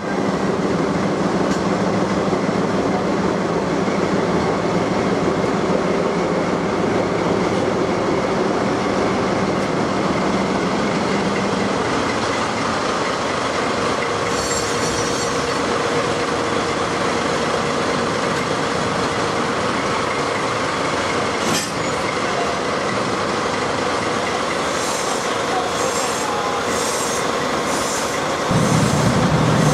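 A diesel locomotive's engine running steadily close by, a continuous mechanical rumble with a low hum that drops away about halfway through. There is one sharp knock about two-thirds of the way in.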